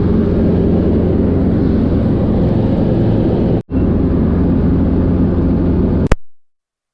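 Helicopter running, a loud steady mechanical drone. It drops out for an instant a little over halfway, and ends with a sharp click about six seconds in, followed by silence.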